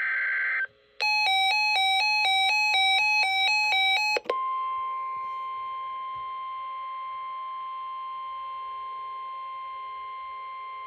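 Emergency Alert System alert tones. A brief buzzy burst of SAME digital header data ends, then a two-note electronic chime alternates rapidly for about three seconds. After that, the steady NOAA Weather Radio 1050 Hz warning tone sounds without a break.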